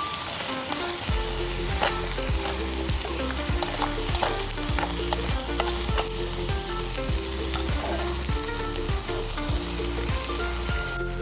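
Food sizzling as it fries in a pan, under background music with a steady beat that comes in about a second in.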